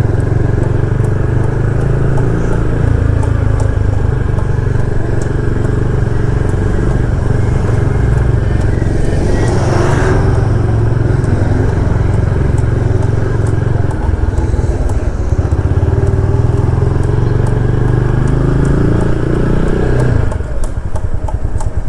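Motorcycle engine running under way, a steady note with a brief whoosh about halfway through. Near the end the engine note climbs, then drops suddenly as the throttle eases off.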